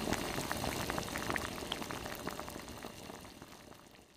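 Intro sound effect on a title card: a dense crackling, bubbling noise full of small pops, steady at first and fading out over the last two seconds.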